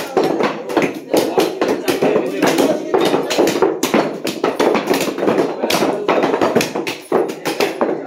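Many cleavers chopping meat on wooden log blocks at once: a dense, irregular clatter of knocks, several a second, with no pause.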